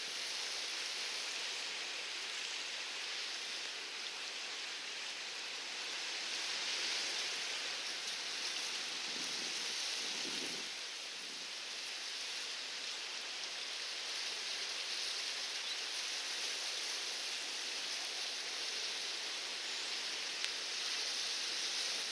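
Steady outdoor hiss, an even wash of noise with no engine or ship sound standing out, and a brief tick near the end.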